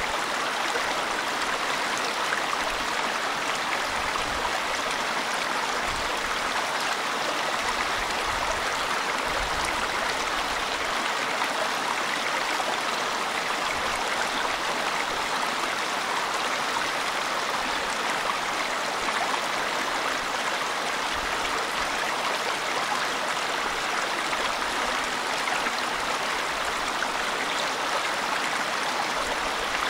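Small mountain brook running over rocks and stones in little cascades: a steady, unbroken rush of flowing water.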